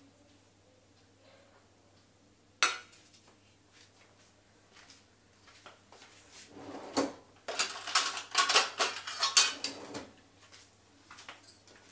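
Kitchen utensils and dishes clinking and clattering: one sharp knock a little over two seconds in, then a busy run of clatter from about six and a half to ten seconds in.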